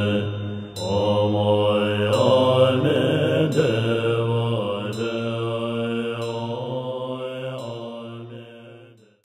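Chanted Buddhist mantra over a low, steady drone, fading out near the end.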